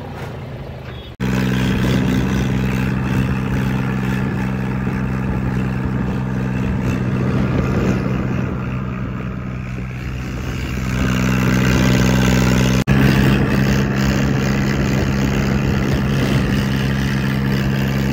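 Truck engine running at a steady speed, with a strong low hum. The sound breaks off sharply about a second in and again about two thirds of the way through, then carries on.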